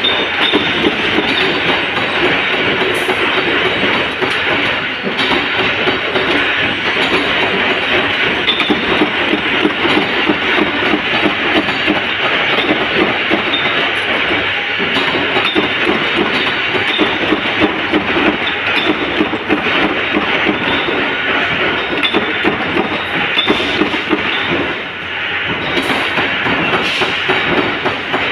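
Flywheel-driven mechanical power presses running and stamping rings out of steel strip: a fast, continuous clatter of press strokes with metal clinking, briefly easing about 25 seconds in.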